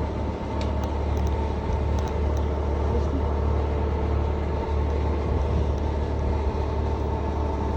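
An engine running steadily with a low, even hum and a faint steady whine above it.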